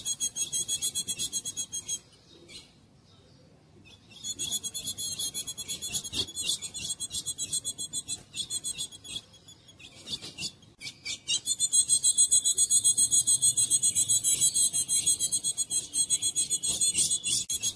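Female azulão (ultramarine grosbeak) calling in rapid, rasping runs of high-pitched notes, in three long bouts with short pauses about two seconds in and about ten seconds in.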